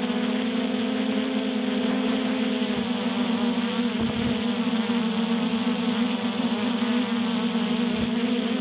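Multirotor drone's motors and propellers buzzing steadily in flight: a constant low hum with a slight waver in pitch.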